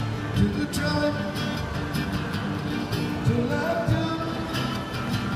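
Acoustic guitar being strummed, with a man singing along to it.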